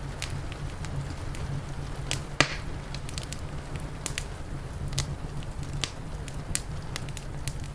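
Wood fire crackling, with irregular sharp pops and one louder pop about two and a half seconds in, over a steady low rumble.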